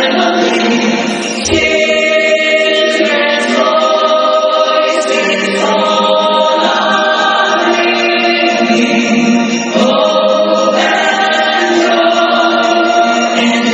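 Choir singing a slow piece in long held chords, the harmony shifting every second or two.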